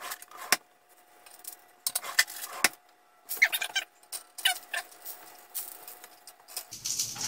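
Chopsticks clicking and tapping against a frying pan as searing potstickers are checked and turned: scattered sharp clicks in irregular clusters, over a faint steady tone that stops near the end.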